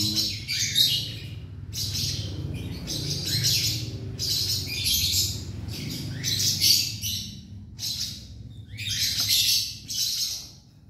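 Baby plantain squirrel squeaking and chirping shrilly in repeated bursts of about a second each, while it is fed from a syringe, over a steady low hum.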